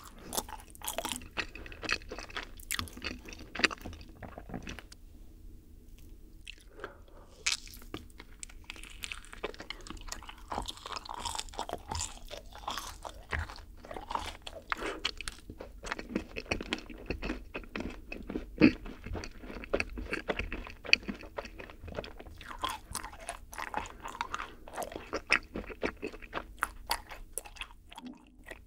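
Close-miked chewing and biting of yakgwa, a syrup-soaked Korean honey-fried cookie, topped with vanilla ice cream. Dense, sticky, crunchy mouth sounds run throughout, with a brief lull about five seconds in.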